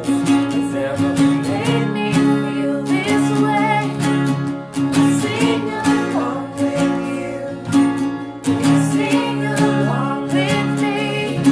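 Acoustic guitars strummed steadily, with several voices singing together over them.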